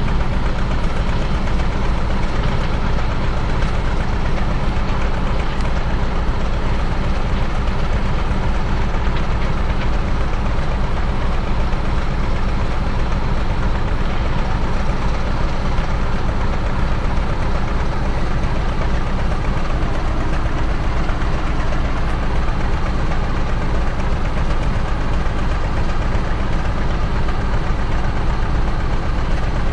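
Diesel locomotive engine idling steadily, a loud, even low rumble that does not change.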